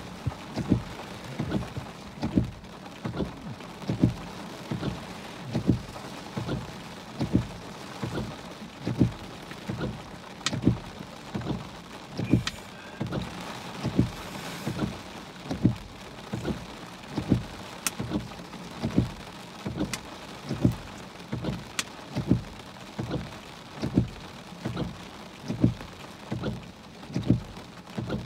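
Heavy rain falling steadily, with a regular low thump repeating about once every half to three-quarters of a second and a few sharp drop ticks.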